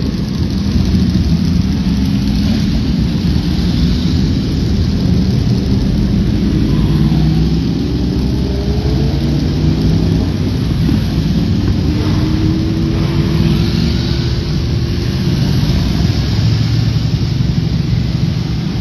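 Several superbike engines running as bikes ride along a pit lane, their engine notes rising in pitch about halfway through as bikes pull away, over a steady low rumble.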